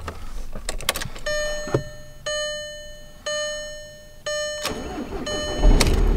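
A car's dashboard warning chime dinging about once a second, five times, after a few clicks. Near the end the car's engine cranks and starts, running on steadily.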